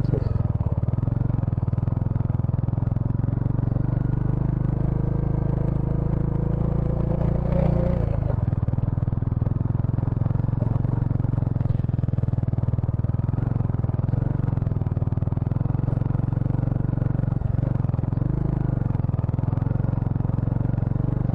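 Bajaj Dominar 400's single-cylinder engine pulling the motorcycle up a loose dirt and gravel track. The engine note rises slowly, drops sharply about eight seconds in, then runs on steadily.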